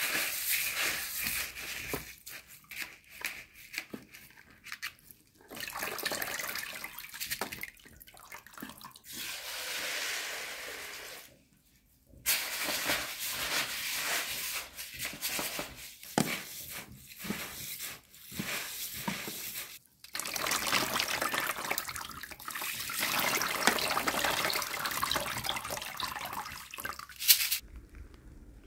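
Mung beans being rubbed and washed by hand in a plastic colander in a bowl of water, swishing and sloshing in stretches a few seconds long, with scattered knocks of a knife on a wooden cutting board.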